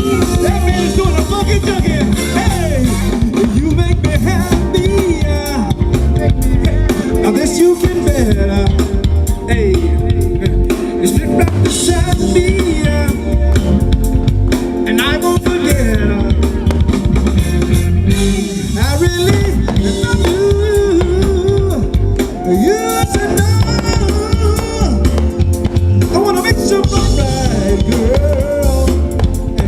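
Live band playing an up-tempo dance song, with drum kit, guitar and singing.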